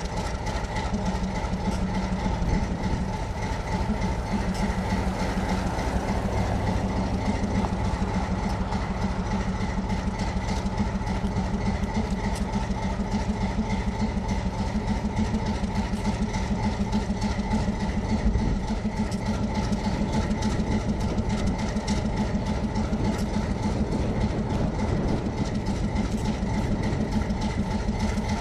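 Alco 12-cylinder 251B diesel prime mover of an RS-18u locomotive idling cold after a cold start, a steady, rapid exhaust beat.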